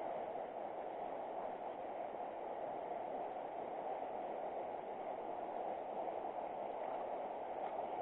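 River water running past, a steady even rushing noise.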